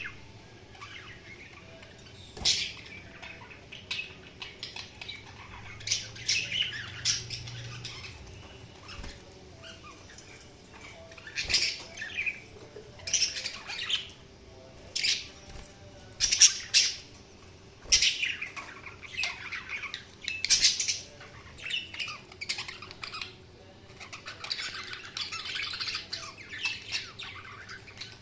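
Budgerigars (budgies) chirping and squawking in short, irregular high calls, running into a denser, continuous warbling chatter near the end.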